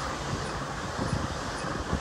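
Siemens SC-44 Charger locomotives rolling past on the rails while being towed: a steady rumble of wheels on track, with a few knocks from the wheels about halfway through and again near the end.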